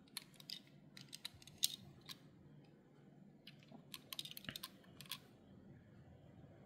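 Light, scattered clicks and taps of a small die-cast metal model car being turned over in the fingers, in a few short clusters with quiet between them.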